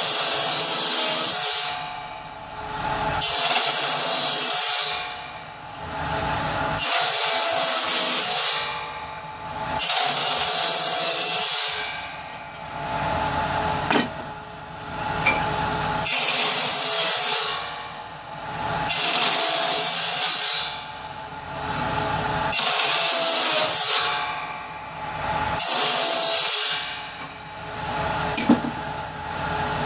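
Power saw cutting pieces of wood for kindling: the motor runs steadily, and loud cutting passes of a second or two each come about every three seconds as each piece is fed through.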